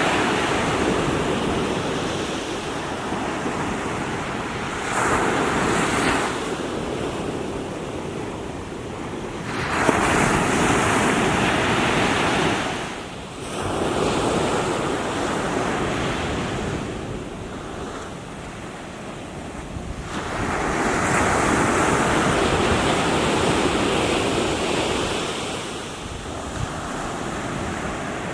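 Small waves breaking and washing up the shore, swelling three times, about 5, 10 and 21 seconds in, with wind on the microphone.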